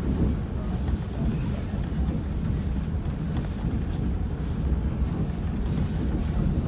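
Passenger train running, heard from aboard: a steady low rumble of the cars rolling on the track, with scattered light clicks and knocks.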